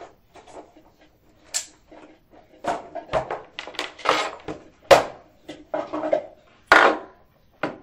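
Plastic parts of a Fakir Vienta food processor clacking and knocking as the motor unit and bowl lid are lifted off and set down: a run of sharp knocks, the loudest about five seconds in and again near seven seconds.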